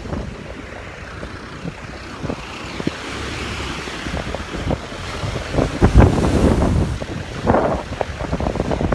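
Wind buffeting the microphone in gusts, strongest about six seconds in and again a little later, over a steady rush of sea surf.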